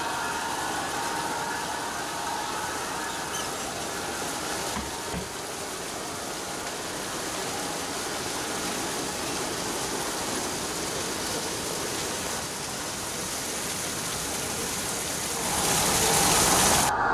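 G-scale model freight train rolling past on garden track: a steady rush of wheels on rail, mixed with running water from a small layout waterfall. It gets louder near the end.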